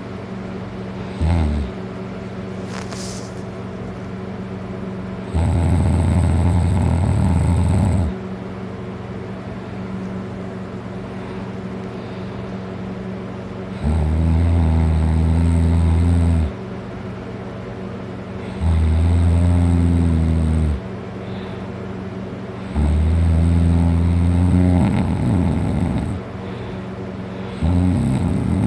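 A man passed out drunk, snoring loudly. A brief snort comes about a second in, then five long snores of two to three seconds each, every few seconds, over a steady background hum.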